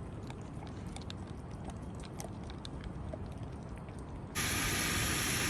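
A dog eating kibble from a bowl: faint, scattered crunching chews. About four seconds in, a sudden cut to a louder, steady sizzle of pork cooking on a grill.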